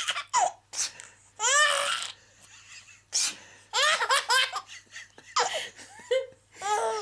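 A baby laughing in a string of short giggling bursts and belly laughs, each burst falling in pitch, with brief pauses between them.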